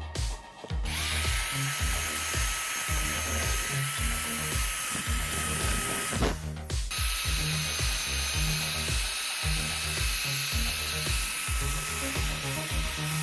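Crown corded electric drill running with a steady whine as a small wheel attachment scours rust off a steel sword blade. The drill spins up about a second in, stops briefly around six seconds, then starts again. Background music with a steady beat plays underneath.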